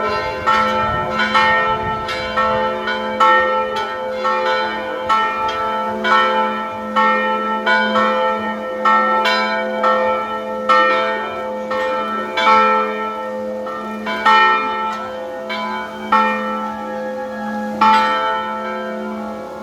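Church bells ringing, several bells of different pitch struck in turn in a repeating pattern about once a second. A steady low hum rings on underneath the strikes.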